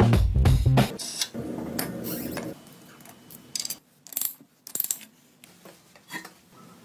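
Background music cuts off about a second in. It gives way to workshop sounds of motorcycle parts being reassembled: a short rubbing noise, then scattered light metallic clinks and clicks of tools and steel parts.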